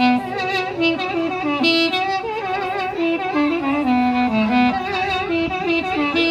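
Armenian wind instrument playing a solo melody with wavering vibrato and quick ornamental turns between notes.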